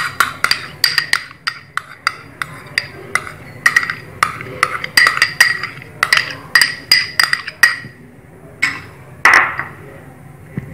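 Metal spoon tapping and scraping against a small glass bowl to get the yogurt out, a quick run of sharp ringing clinks, several a second. The clinks thin out near the end, where two louder scraping strokes follow.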